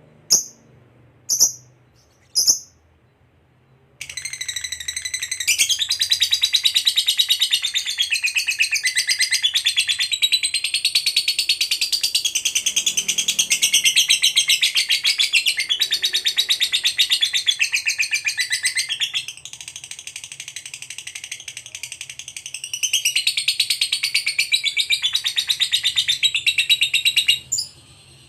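Lovebird giving a few short single chirps, then from about four seconds in a long, rapid, unbroken high chattering song (the 'ngekek panjang' of a fighter lovebird). It runs for over twenty seconds, drops softer for a few seconds in the second half, picks up again and stops abruptly near the end.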